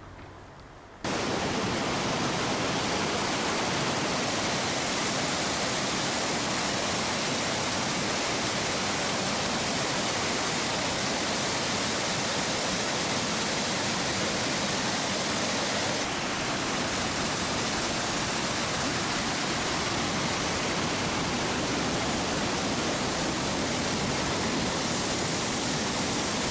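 Waterfall in a town centre, the Leuk river pouring over a rock drop into a stone-walled channel: a steady, even rush of falling water that starts abruptly about a second in.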